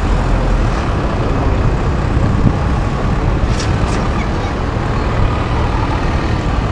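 Steady roar of city street traffic at a busy intersection, with a couple of brief hisses a little past halfway.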